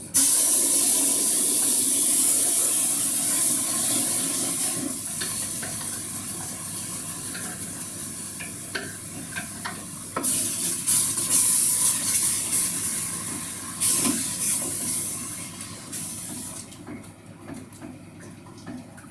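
A blended vegetable mixture hits hot oil in a steel stockpot and sizzles loudly at once. The sizzle slowly dies down, then flares up again about ten seconds in and once more a few seconds later as more is poured in and stirred, with a few light knocks of a wooden spoon, and fades out near the end.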